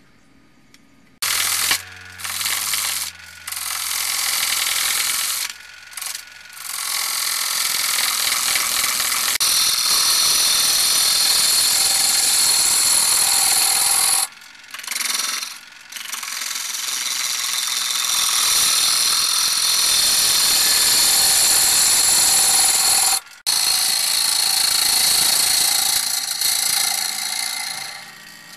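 Large red oak bowl spinning on a wood lathe while a bowl gouge cuts into its face: a loud, steady hiss of shavings tearing off, with a low hum in the first few seconds. The cut starts about a second in and breaks off briefly three times when the gouge comes off the wood.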